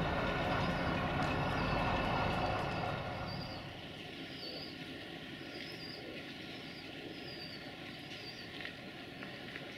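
Diesel railcar engine running steadily, then, after a sudden drop about three seconds in, the fainter hum of the Duewag BR628 diesel multiple unit approaching, with a small bird chirping repeatedly.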